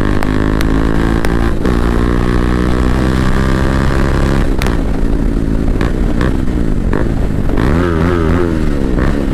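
Bajaj Dominar 400's single-cylinder engine through a modified aftermarket exhaust, ridden hard: it pulls up through a gear change with a rising note. About halfway through the throttle is rolled off and the exhaust note falls and wavers as the bike slows.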